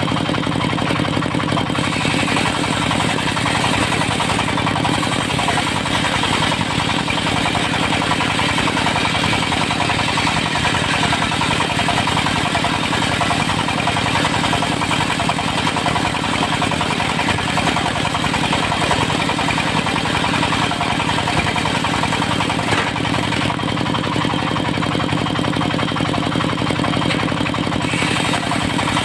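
Engine-driven circular sawmill running steadily, its motor holding an even speed throughout.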